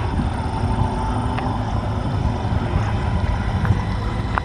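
Approaching truck's engine: a steady low rumble.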